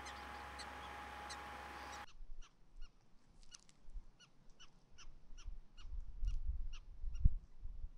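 A prairie dog giving a rapid series of short, high barking calls, about three a second, over a steady hiss at first. A low rumble builds late on, and there is one sharp thump near the end.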